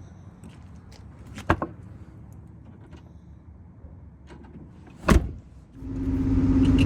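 A couple of light knocks, then a louder bang about five seconds in, like a pickup truck door shutting. About a second later a steady vehicle drone with a low hum builds up and holds to the end.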